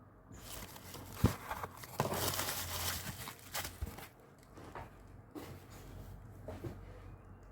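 Stationery packaging crinkling and rustling as it is handled and opened, with a sharp tap about a second in and a few lighter knocks.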